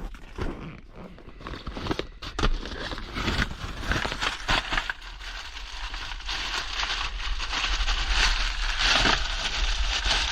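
Gritty scraping and crackling of rusted metal being worked under the car, with rust breaking loose; it thickens into a steady dense scraping from about four seconds in.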